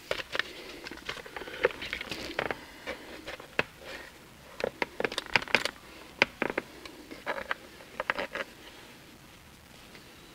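Scattered light clicks and taps, several in quick clusters, from hands handling the plastic interior trim and console of a C6 Corvette.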